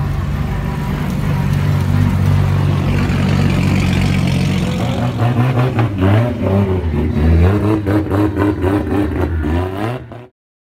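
Drift car engines running hard at high revs, then revving up and down rapidly through the second half. The sound cuts off suddenly near the end.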